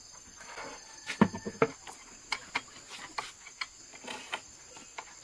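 Steady high-pitched insect chirring, with a series of short knocks and clatters from plastic water buckets and a bamboo carrying pole being handled, the loudest about a second in.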